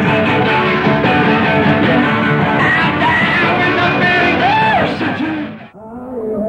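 A band playing guitar-led rock music live, with singing. About five and a half seconds in, the music dips sharply and a different recording starts.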